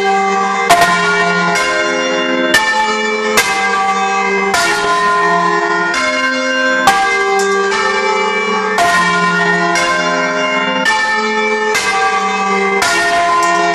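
Church tower bells rung by hand from ropes, heard loud and close: several bells of different pitch strike in turn about once a second, each ringing on under the next.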